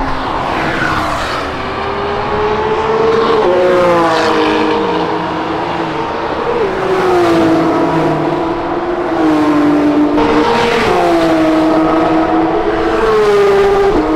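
Sports cars accelerating hard down a race-track straight. Each engine note climbs and then drops sharply at an upshift, several times over.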